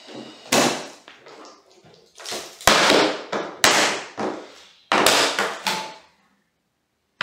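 Several loud tearing pulls of tape and sharp knocks on a plywood shipping crate as its lid is freed and lifted off.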